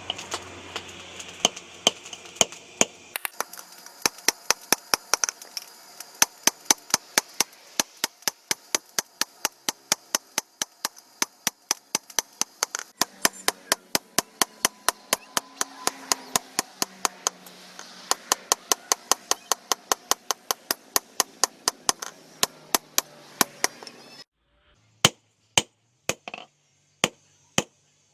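A rapid, even series of sharp knocks, about three to four a second, like chopping strokes, over a changing background hum. Near the end the background cuts out and the knocks become fewer and irregular.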